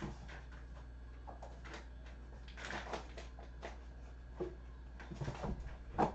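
Kittens moving about a room: scattered light knocks and rustles, with a sharper knock near the end, over a steady low hum.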